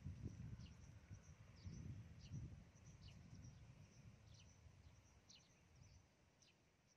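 Faint outdoor ambience: short, high, falling bird chirps repeat every half second or so over a low rumble that fades away toward the end.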